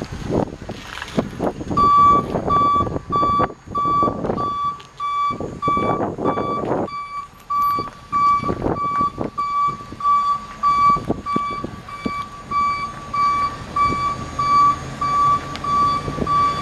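Backup alarm on a 2005 Chevrolet Silverado 3500 flatbed beeping at a steady rate, starting about two seconds in, with the truck's engine running. The beeps show the truck is in reverse. Bursts of rushing noise come and go through the first seven seconds.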